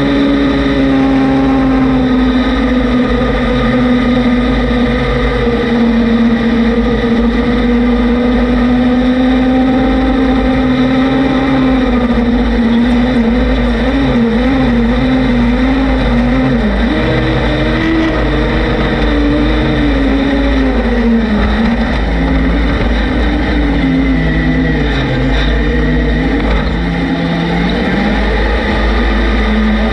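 A vehicle engine running, holding a steady pitch for the first dozen seconds and then rising and falling as the throttle changes, with wind buffeting the microphone.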